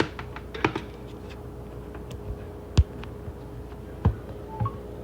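Scattered clicks and knocks of containers and utensils being handled and set down while making coffee, the loudest about three seconds in and another about a second later, over a steady hum.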